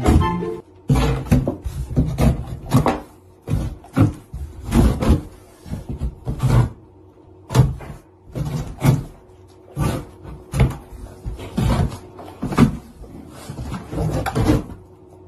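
Golden retriever nosing and snuffling through cardboard jigsaw puzzle pieces on a tabletop: irregular short snuffles and rustles, about one or two a second.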